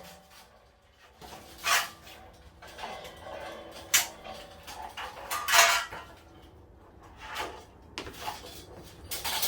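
Scattered metallic clanks and knocks, about five of them a second or two apart, as the metal hand truck's frame and fittings are worked into place against a water heater.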